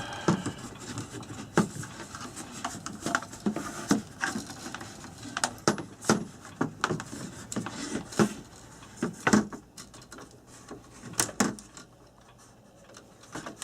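Scattered clicks and light knocks at irregular intervals as a plug wire is worked into a knot inside a plastic clock case.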